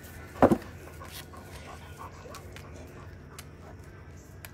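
A dog panting, with one short, loud sound about half a second in.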